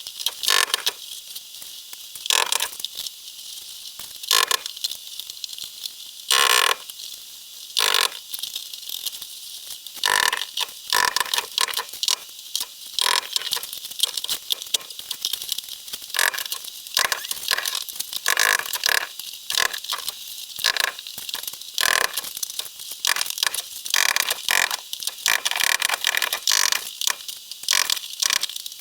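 Claw hammer chipping and scraping at Durock cement backer board and mortar to dig out and pry up roofing nails: rapid, irregular sharp knocks and crunching, coming closer together in the second half.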